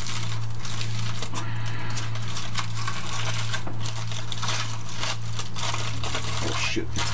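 A steady low hum, with scattered light clicks and rustles of food being handled at a kitchen counter.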